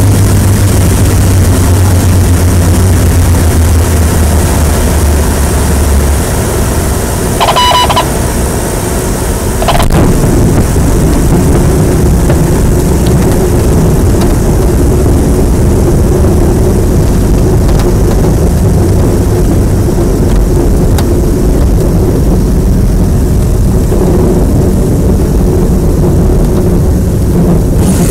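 Single-engine light airplane's engine and propeller heard from inside the cockpit during landing. The steady engine drone drops off about six seconds in as power comes back, a brief high tone sounds near eight seconds, and from about ten seconds a steady cabin noise of engine and rollout carries on.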